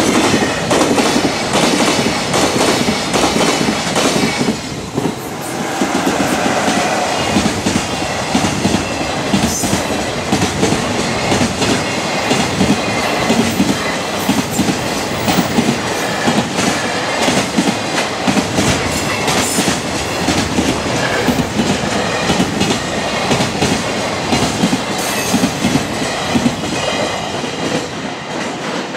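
A fast freight train's container wagons rushing past, the wheels beating a rapid, steady clickety-clack over the rail joints with a heavy rumble beneath. The last wagon passes near the end and the clatter begins to fade.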